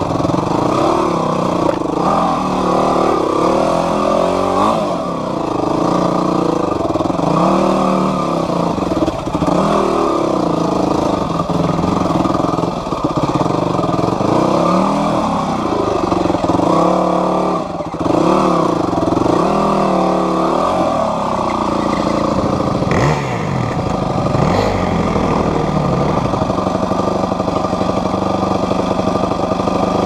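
Yamaha WR250F's 250 cc four-stroke single-cylinder engine on low-speed throttle over rocks, revving up and falling back again and again, with a brief clatter about three quarters of the way through. It settles to a steadier, lower run near the end.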